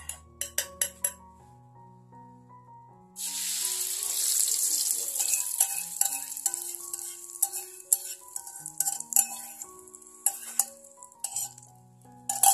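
Beaten egg poured into hot oil in a wok: a loud sizzle starts suddenly about three seconds in, then eases to a steady frying sizzle. A spoon clinks against the enamel bowl a few times before the pour and again as the last of the egg is scraped in.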